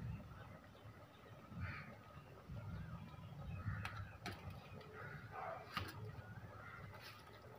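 A pot of broth at a rolling boil, bubbling faintly with an uneven low rumble and a few sharp clicks. Faint bird calls come in now and then.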